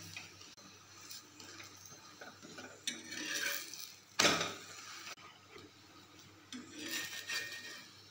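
Steel spatula scraping and tapping on a tawa as a paratha is pressed and lifted to turn it, with one sharp knock about halfway through.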